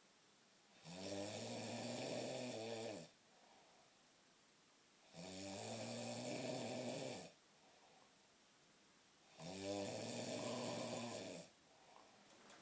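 A sleeping man snoring through his nose: three snores of about two seconds each, coming every four seconds or so, with quieter breathing between them.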